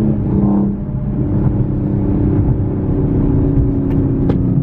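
Nissan 370Z's 3.7-litre V6 with a Motordyne Shockwave exhaust running at steady revs, heard from inside the cabin. Two faint sharp ticks come near the end.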